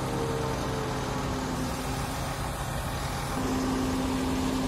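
Mobile crane's diesel engine running steadily while it holds a suspended load. A little over three seconds in, a steadier, higher hum sets in and holds.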